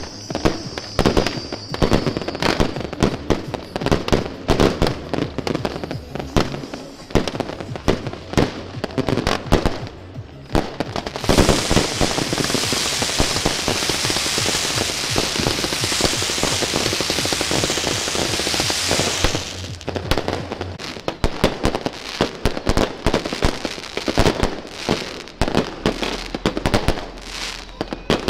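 Fireworks and firecrackers going off in rapid, dense bangs and crackles. About 11 s in, a ground fountain firework sprays sparks with a continuous rushing hiss for about eight seconds, and then the rapid bangs resume.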